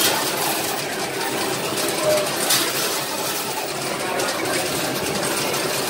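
Coin pusher arcade machine over a steady din of arcade noise, with sharp metal coin clinks, one at the start and another about two and a half seconds in.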